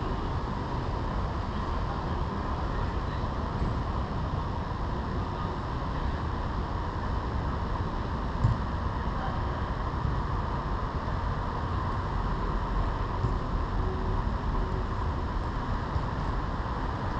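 Steady outdoor noise on a GoPro's microphone, a constant rumble and hiss, with one brief knock about eight and a half seconds in.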